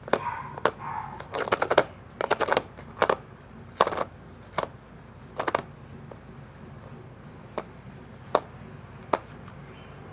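Homemade toothpaste-and-salt slime being squeezed and poked by hand, making sharp clicking pops. They come in quick clusters in the first few seconds, then as single clicks about once a second.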